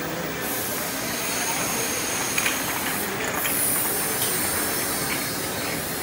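Glass bottle washing machine and its bottle conveyor running: steady machine noise with a hiss, and a few light clicks about two to three seconds in.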